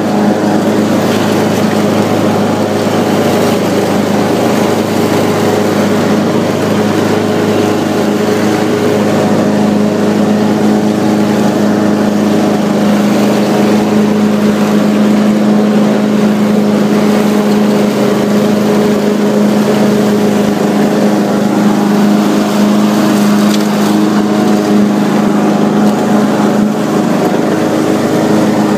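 Craftsman riding lawn tractor running steadily while mowing, its engine and spinning deck blades cutting tall grass.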